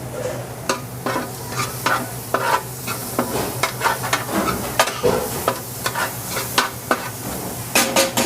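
Chicken frying in a hot pan, sizzling while a utensil stirs it, with repeated scrapes and clicks against the pan over a steady low hum.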